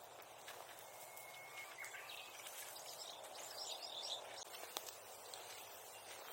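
Birds chirping in short high calls over a steady outdoor hiss, with one sharp crack about three quarters of the way through.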